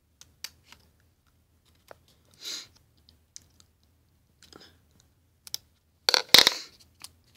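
Scissors snipping a small piece of paper: a scatter of short, sharp clicks and brief crisp cuts. About six seconds in comes a louder knock and rustle of handling close to the microphone.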